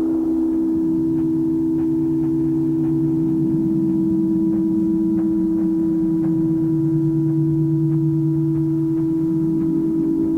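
Ambient music drone from a home four-track cassette recording: a steady held tone with a lower tone beneath it that slowly glides down, back up, down again, and rises near the end, with faint scattered clicks.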